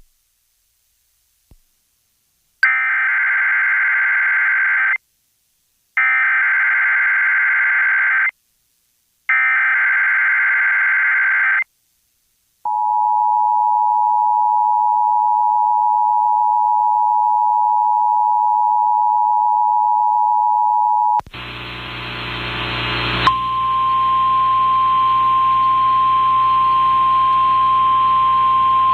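Emergency Alert System test tones: three identical bursts of warbling SAME digital header data about two seconds long with one-second gaps, then the steady two-tone EAS attention signal for about eight seconds. After a sudden switch to a hummy, noisy relayed feed that swells for two seconds, a single steady alert tone begins and holds.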